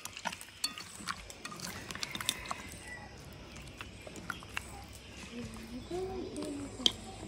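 Hands tossing fish steaks in manioc flour in a glass bowl: soft, irregular clicks and handling noises. A faint voice comes in near the end.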